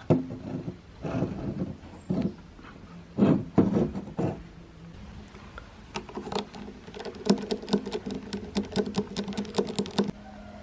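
Mechanical alarm clock being handled: a few loud knocks, then from about six seconds in a fast run of sharp clicks over a steady low hum that stops suddenly near ten seconds.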